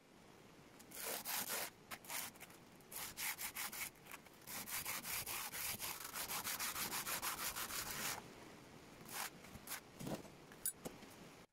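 Steel knife blank rubbed back and forth on sandpaper stuck to a flat board, lapping the blade's face flat, in quick, even strokes. Near the end it slows to a few separate strokes.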